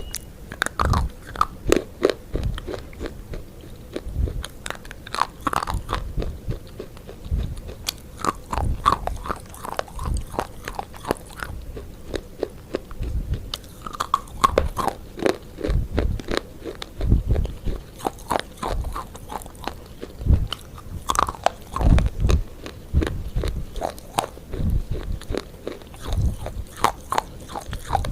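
Close-up crunchy chewing: a person biting and chewing something crisp, with irregular sharp cracks and low thuds, one or two a second.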